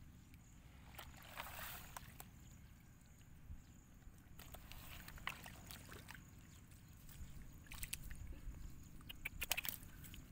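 Hands splashing and sloshing in shallow muddy water as fish are grabbed, with fish thrashing in the water. Several short, sharp splashes stand out, in a quick cluster near the end.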